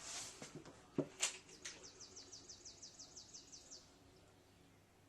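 A bird giving a quick, faint run of short high chirps, about six a second for roughly two seconds, after a few faint clicks.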